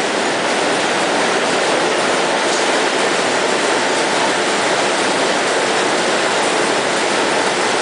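Rotary tablet press running steadily as it compresses powder into chicken bouillon cubes: a dense, even mechanical noise with no pauses.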